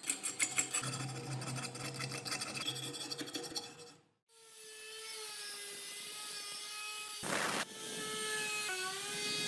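Rapid scraping strokes on metal for about four seconds. After a brief gap, a small power tool starts running with a steady whine that rises slightly, broken twice by short hissing bursts as it bites the work.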